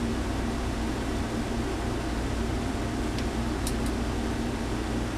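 Steady fan-like background hum and hiss, with a few faint small clicks a little after three seconds in.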